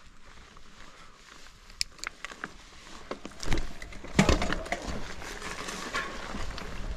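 Mountain bike clattering over rough ground: scattered light clicks, then a couple of hard knocks about three and a half and four seconds in, after which a louder steady rattle and rolling noise goes on.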